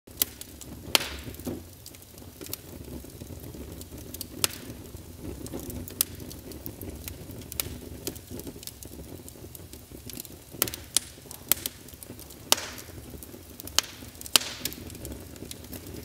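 Wood fire crackling: irregular sharp pops and snaps over a low steady rumble.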